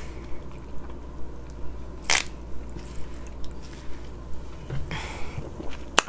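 Someone gulping soda from a plastic bottle, with soft swallows coming about three times a second and one sharper click about two seconds in.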